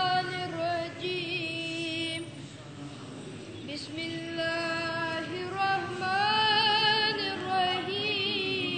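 A child's voice singing a Kashmiri naat unaccompanied, in long held notes with vibrato. The singing breaks off about two seconds in and picks up again about two seconds later.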